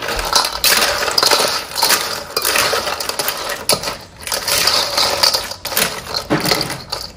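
Small clam shells clattering and clinking against each other in a dense, continuous run of hard little clicks, with brief lulls.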